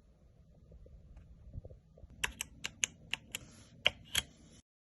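Keys struck on an E-Yooso Z11 mechanical keyboard with Outemu Red linear switches: a quick run of about nine sharp key clicks, after a faint low rumble. The sound cuts off abruptly near the end.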